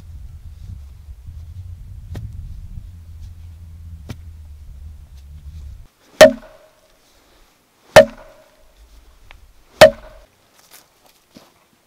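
Wooden stake being pounded into the ground with a log used as a mallet: three hard wood-on-wood knocks about two seconds apart, each with a short hollow ring. Before them, a low rumble with a couple of faint knocks.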